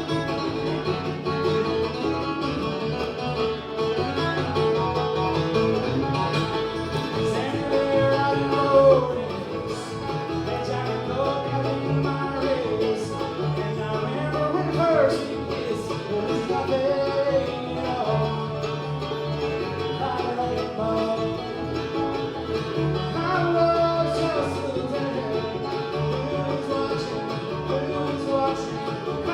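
Bluegrass band playing live, a continuous stretch of string-band music.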